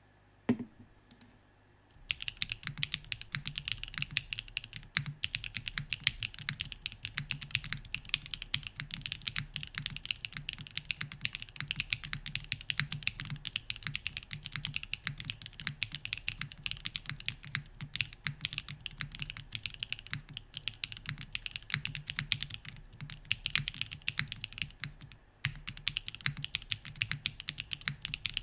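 Fast, continuous typing on a Kalam Korn mechanical keyboard with SWK Ripple switches, an O-ring mounted aluminium plate, no foam and Domikey keycaps. The typing begins about two seconds in after a single knock, and the stream of keystrokes pauses briefly near the end.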